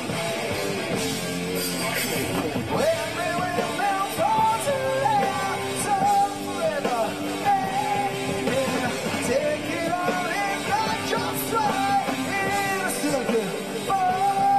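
A live band playing a song, with a man singing lead into a microphone over the instruments.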